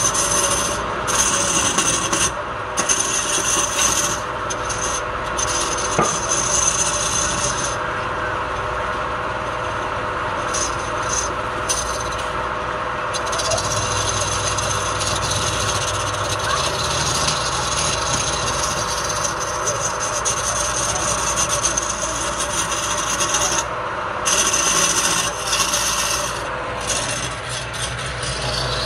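Wood lathe turning a block of pale wood while a hand-held gouge cuts it, peeling off long shavings with a steady scraping hiss over the even hum of the lathe. The hiss breaks off briefly several times, for a second or two each time.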